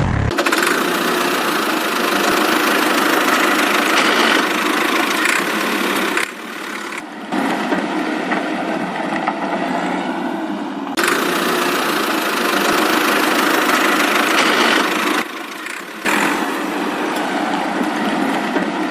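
Tractor engine sound running steadily, with no deep bass, cutting in sharply at the start and dropping back briefly twice, about six seconds in and about fifteen seconds in.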